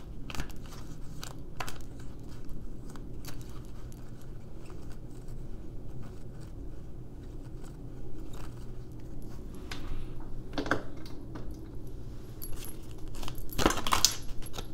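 Light clicking and metallic jingling of small hard objects being handled, scattered through, with a cluster about ten seconds in and the loudest burst near the end, over a faint steady low hum.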